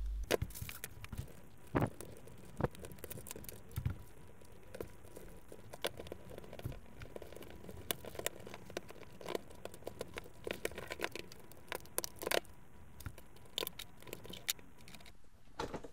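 Plastic and metal parts of an inkjet printer mechanism being handled and pried apart by gloved hands: irregular small clicks, taps and knocks.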